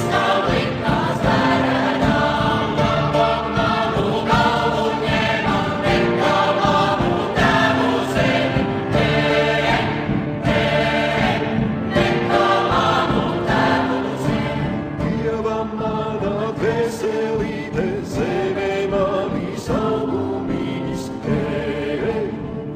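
Choir singing over instrumental accompaniment with a steady beat, in the manner of dance music for a folk-dance stage show.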